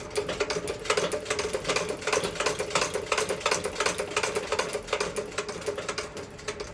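Ca. 1900 Singer "Patcher" treadle sewing machine stitching at speed through thick canvas and a bulky seam: a fast, even clatter of needle strokes, several a second, over a steady hum. It stops shortly before the end.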